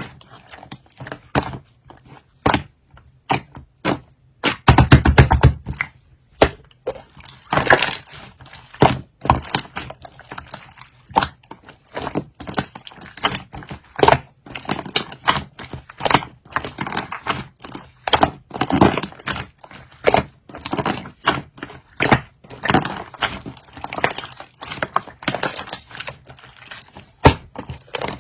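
Purple pearl slime being squished and pressed by hand, giving irregular crisp pops and clicks of trapped air, with a fast run of pops about five seconds in.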